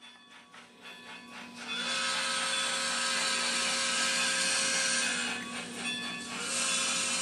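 LokSound Micro v4 sound decoder in an N scale 4-6-2 Pacific playing steam locomotive sounds through its small speaker, over a steady low hum. Faint rhythmic strokes build up, then a loud steam hiss starts about two seconds in, lasts about three seconds, and comes again near the end.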